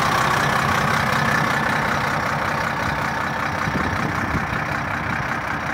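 Renault Iliade coach's rear-mounted diesel engine idling steadily with its engine bay open, a little quieter in the second half.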